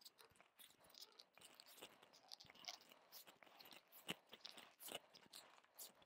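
Handlebar tape being stretched and wound around a road bike's handlebar: faint, irregular crinkling and crackling.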